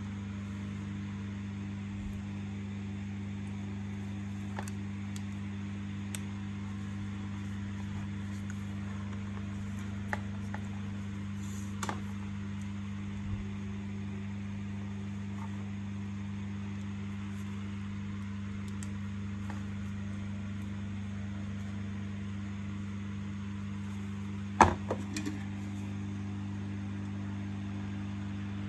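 Steady low electrical hum, with a few faint clicks and a louder short rattle of knocks about 25 seconds in.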